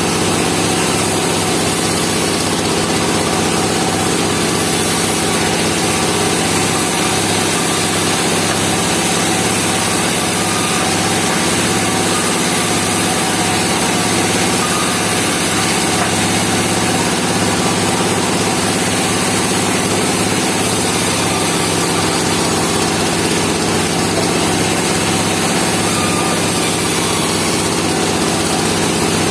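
Engine of a portable band sawmill running steadily at an even pitch.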